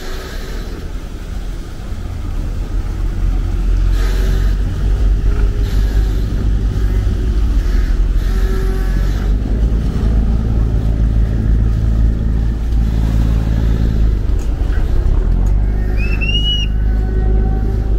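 Chao Phraya Express Boat's diesel engine rumbling as the boat comes alongside the pier, growing louder a couple of seconds in and then holding steady. Near the end comes a short whistle that rises and falls, the kind of signal the boat crew blows to the helmsman while docking.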